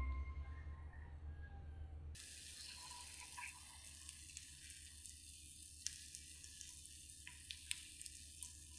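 The last note of a marimba tune dies away, then about two seconds in faint sizzling starts as a shredded cabbage, carrot and egg mixture meets melted butter in a frying pan, with small scattered pops.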